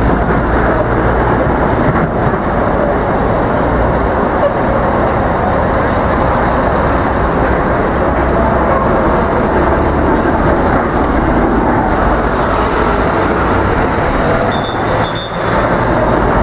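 Steady, loud city street traffic noise: a dense rumble of engines and tyres from passing cars and trucks.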